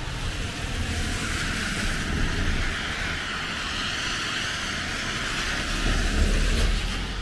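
A vehicle passing on a wet road, its tyres hissing through the water as it swells over several seconds, with a low rumble near the end, over rain falling on an umbrella.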